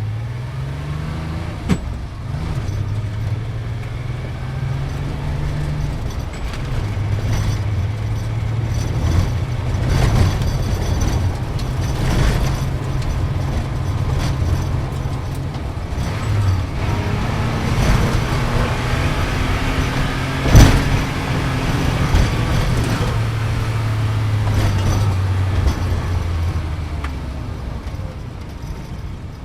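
Sports car engine running hard, its pitch stepping up and down. A few sharp knocks come through it, the loudest a single bang about two-thirds of the way through.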